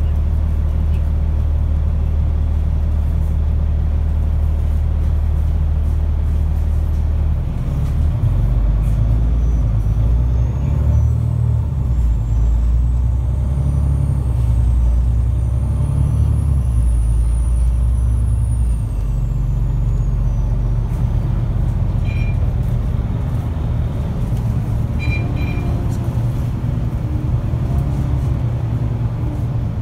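Alexander Dennis Enviro500 MMC double-decker bus heard from inside: the engine drones steadily at a standstill, then the bus pulls away about a quarter of the way in and the engine runs under load as it drives on. A faint high whine rises and falls in the middle.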